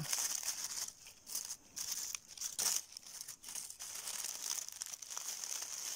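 Dry oak leaf litter crinkling and crackling under a hand while a small knife cuts through a mushroom's stem, in short irregular bursts, the loudest about two and a half seconds in. A steady high hiss lies underneath.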